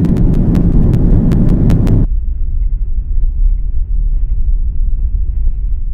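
Airliner cabin noise in flight: a steady, loud low rumble of engines and airflow heard from a window seat, with a string of sharp clicks over the first two seconds. About two seconds in, the sound turns duller as its higher part drops away.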